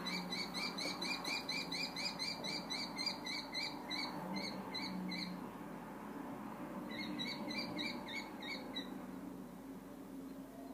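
Common kestrel calling: a rapid, even series of high 'kee-kee-kee' notes, about four a second, lasting about five seconds. A second, shorter run follows about two seconds later.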